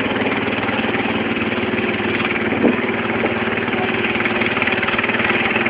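Engine of a wooden banka motorboat running steadily under way, a constant low rhythmic drone.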